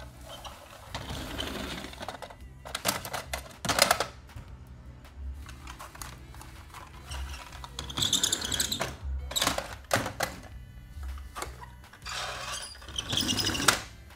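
Plastic toy hauler trucks being picked up, rolled and set down, in several separate bursts of clicking and rattling over background music.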